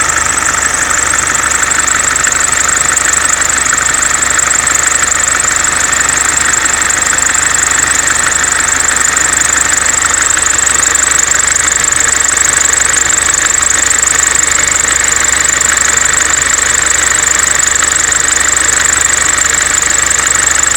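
Mercedes C-Class S202 220D diesel engine idling with a loud, steady high-pitched noise from the ribbed (serpentine) belt drive, which the owner suspects comes from the alternator's freewheel pulley or the belt's vibration damper.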